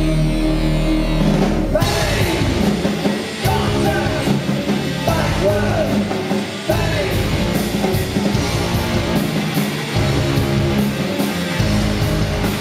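Live rock band with singing, amplified and caught on a camera's built-in microphone. A held, droning chord gives way about two seconds in to drum hits and a sung vocal line over the band.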